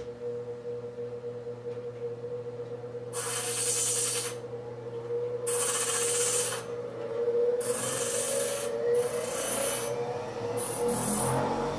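Metal being worked by hand with an abrasive in about five rubbing strokes, each about a second long, over a steady motor hum.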